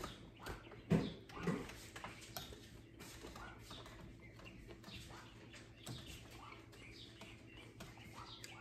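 Quiet eating sounds: a man chewing a mouthful of food, with two short louder mouth sounds about a second in and a few faint clicks of a fork against the plate.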